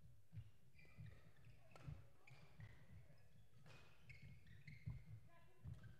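Faint, irregular knocks of badminton rackets striking a shuttlecock in a rally, with short squeaks of shoes on the court floor, heard at low level in a large hall.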